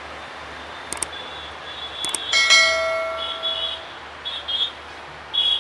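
A single metallic clang about two and a half seconds in that rings on for over a second, over steady background noise; short, high repeated chirps follow.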